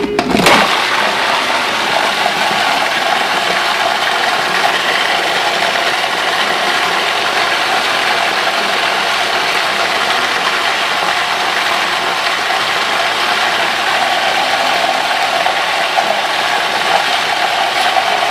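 Cuisinart food processor switched on and running steadily, its blade chopping fresh basil leaves into a thick aioli.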